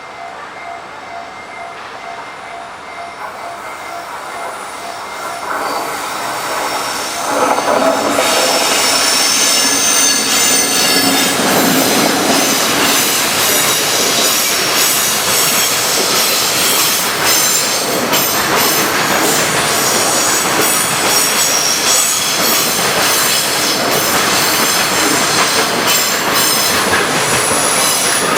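A freight train behind a JR Freight EF65 2000-series electric locomotive approaches and passes close by, growing louder until about a quarter of the way in, then running on with a loud, continuous high-pitched wheel squeal. A level-crossing warning bell pulses faintly at the very start.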